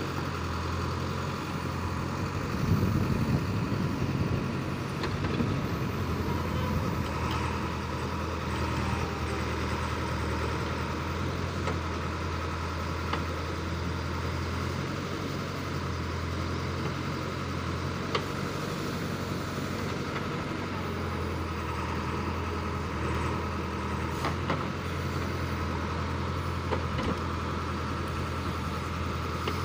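JCB 3DX backhoe loader's diesel engine running steadily under load as the backhoe digs and dumps soil, with a louder surge a few seconds in and a few brief sharp knocks.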